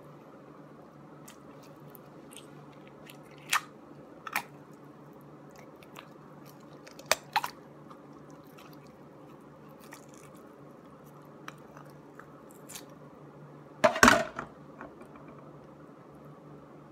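A paua (New Zealand abalone) being shucked: scattered sharp clicks and knocks of shell, with a louder crunching cluster about 14 seconds in, over a steady low hum.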